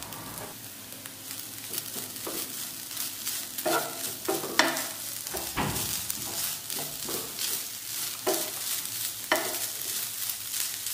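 Chicken and vegetable masala sizzling in a nonstick frying pan, stirred with a wooden spatula: a steady frying hiss broken by irregular scraping strokes against the pan.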